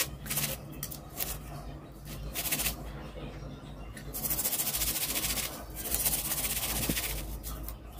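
Steel wool scrubber scouring a grimy metal gas-stove burner ring: a scratchy rasping in spells of about a second, with short pauses between.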